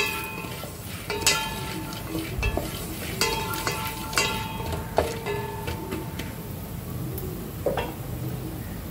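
A metal spoon stirring dry popcorn kernels in a stainless-steel pot on the stove: the kernels rattle and the spoon knocks against the pot about five times, some knocks leaving the pot ringing, over a steady hiss.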